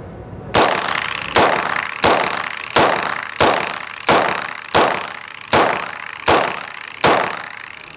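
EMTAN MZ-9 blowback-operated 9 mm carbine fired semi-automatically, ten shots at a steady pace about two-thirds of a second apart, each with an echoing tail. The magazine is loaded with live and practice rounds in alternation, and the tenth shot empties it.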